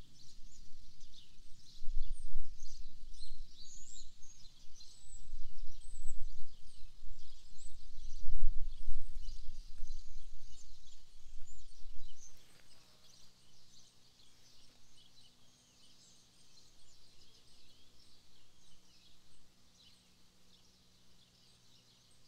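Small birds chirping and singing throughout, many short high calls. A loud low rumble for the first twelve seconds or so stops suddenly, leaving the birdsong over a faint steady low hum.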